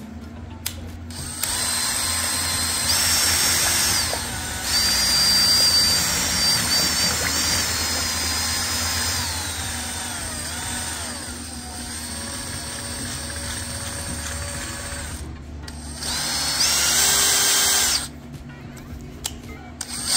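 Electric drill turning a paddle mixer through a bucket of raku glaze slurry, its motor whine rising and falling in pitch as the speed changes. It stops briefly about fifteen seconds in, and again near the end before starting up once more.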